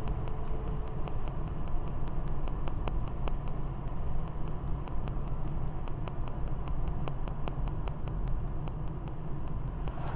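Steady road and engine rumble inside a moving car's cabin, heaviest in the low end. Faint clicks repeat evenly, about three a second, throughout.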